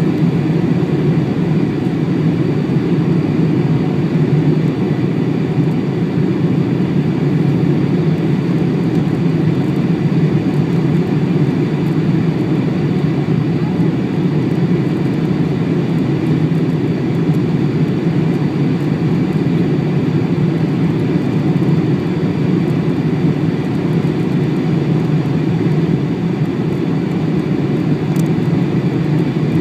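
Steady cabin noise inside a Boeing 747 on final approach with its flaps extended: an even, low rumble of engines and rushing air with no change in level.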